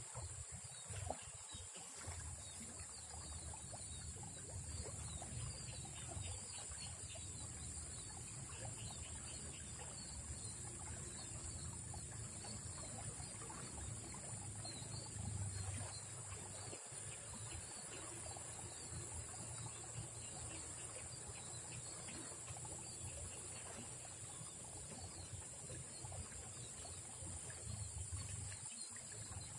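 Faint riverside ambience: a steady, high-pitched insect chorus drones without a break, over a low rumble and faint trickling water.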